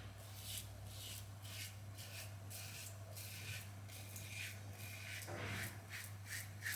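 Stainless Karve Christopher Bradley safety razor with a Polsilver Super Iridium blade scraping through lathered stubble in short, repeated strokes, about two a second.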